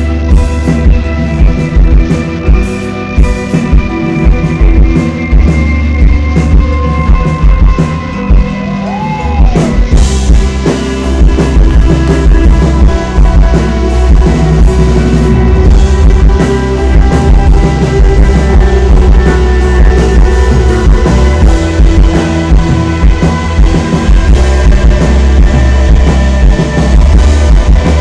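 Rock band playing live, with electric guitars, bass guitar and a drum kit, recorded from the audience. About ten seconds in the band gets fuller and a little louder.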